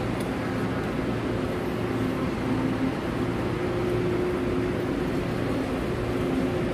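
Steady machine hum of a passenger train standing at the platform, with a low droning tone over a wash of platform noise.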